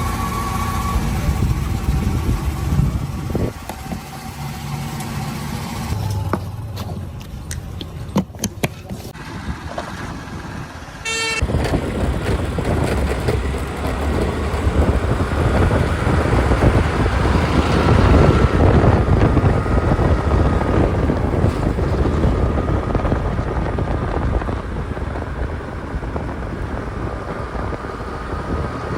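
Heavy diesel machinery running: a few sharp knocks in the first half, then a short horn-like toot about eleven seconds in, after which the engine noise jumps up louder and stays loud.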